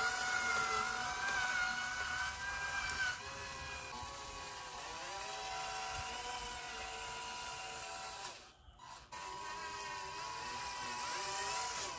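Small electric motor and gearbox of a homemade RC truck whining, its pitch rising and falling as it is driven. The sound drops out briefly about three-quarters of the way through.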